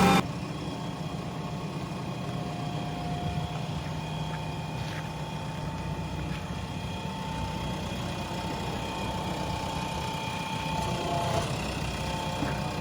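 JCB 3DX backhoe loader's diesel engine running steadily at low revs, with faint steady whining tones above the engine hum.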